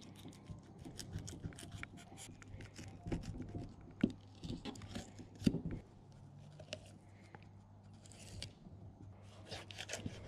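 Fillet knife cutting through albacore tuna skin and flesh on a plastic cleaning table: quick crackling ticks and scrapes, with two louder knocks near the middle.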